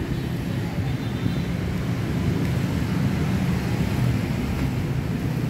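Steady low rumble of background noise that holds at an even level throughout, with a few faint ticks from handling over it.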